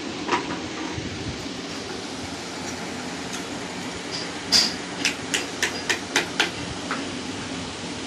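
Steady low hum with a quick run of about seven sharp knocks about halfway through: hard knocks on the plastic body of a washing machine motor.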